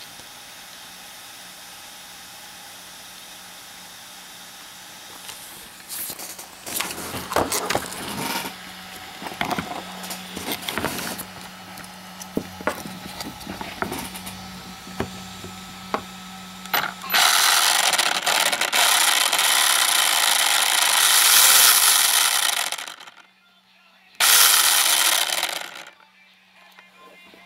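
Slash 4x4 RC truck's motor and drivetrain: short bursts with clicking and rattling, then a loud sustained run of several seconds that cuts off, and a second shorter run. The weird noise comes from the slipper clutch assembly, which looks a little loose.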